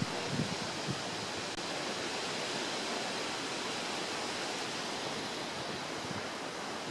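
Steady, even outdoor background hiss with no distinct sounds in it.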